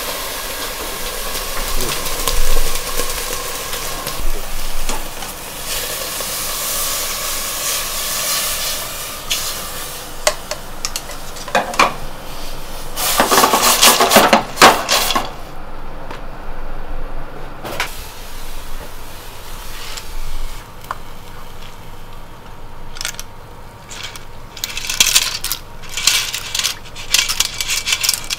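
Clams cooking in a metal saucepan over a gas burner for clam dashi, with metal pots and pans clattering. Near the end the clam shells clink and rattle against metal as the clams and broth are poured through a strainer.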